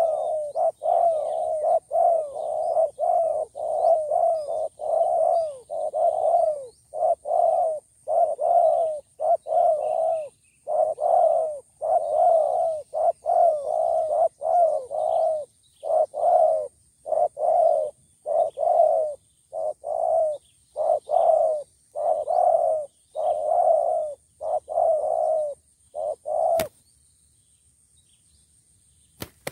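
Spotted doves cooing in a rapid, unbroken series of short coos, a little more than one a second, which stop abruptly about 26 seconds in. A sharp click follows shortly after, and a few more clicks come near the end.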